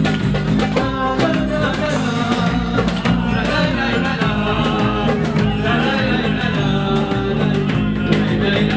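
Live band music: a man singing into a microphone with a wavering melody, over violin, acoustic guitar and a drum keeping a steady beat.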